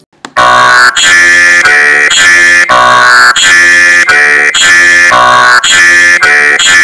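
Harsh, buzzing electronic synth tones playing very loudly from a flashing-colour novelty website, starting abruptly about half a second in and jumping to a new pitch every half second or so, like an alarm.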